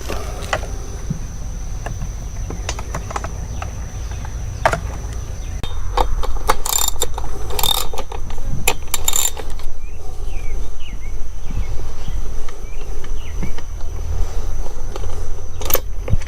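Small-engine work with hand tools: scattered clicks and knocks, and around the middle three short, loud rasping strokes about a second apart, over a low steady hum.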